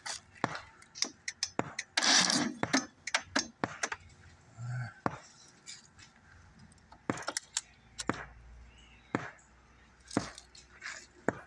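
Irregular sharp clicks and light metal clanks, with a short noisy burst about two seconds in; the lawn mower engine does not start or run.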